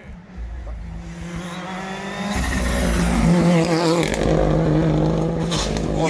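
Rally car approaching at speed, its engine growing louder and jumping up about two seconds in, then held at high revs with a steady note.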